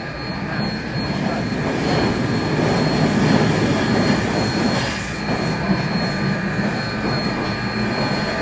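HO-scale model diesel locomotives and freight cars running along the layout's track: a steady mechanical rumble with a thin high whine, growing louder over the first few seconds as the train approaches and then holding steady.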